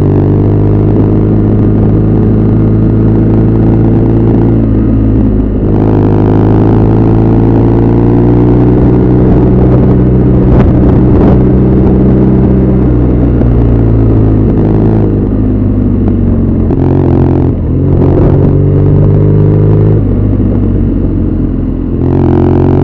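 BMW R nineT Scrambler's 1170 cc air/oil-cooled boxer twin running steadily on the road, its pitch dipping and climbing again a few times as the throttle is eased and opened. A few brief knocks come a little past halfway.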